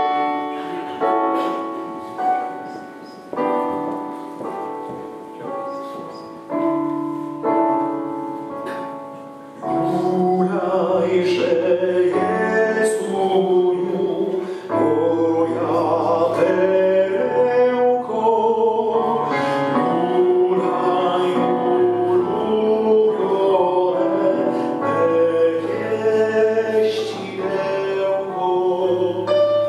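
A keyboard plays an introduction of separate notes that die away, then about ten seconds in a men's choir comes in singing a slow hymn in parts, loud and sustained.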